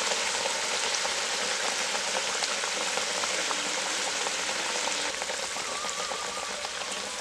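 Bhetki fish curry bubbling and sizzling in a kadai on the fire: a steady hiss with small pops as the gravy cooks down near done.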